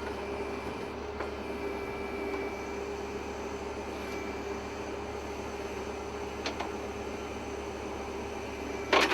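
Steady mechanical hum with a faint constant tone, a light click about two-thirds of the way through and a sharp knock near the end.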